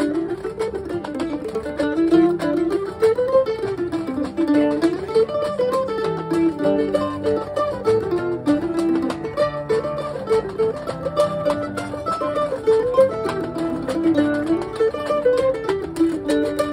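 Acoustic string-band jam: a mandolin picks a running melody over a strummed acoustic guitar, playing steadily throughout.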